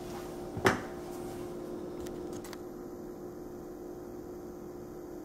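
Small metal anchor screws being handled and set into the holes of a particleboard furniture panel: one sharp click just under a second in, then a few faint ticks, over a steady low room hum.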